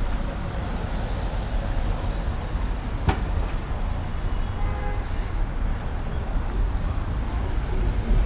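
Street traffic with cars driving past close by, a steady low rumble, and a single sharp click about three seconds in.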